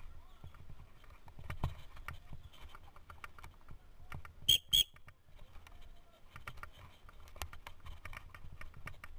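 Mountain bike clattering and rattling over a rough dirt trail, with a low rumble underneath. About four and a half seconds in, two short high-pitched beeps a third of a second apart stand out as the loudest sound.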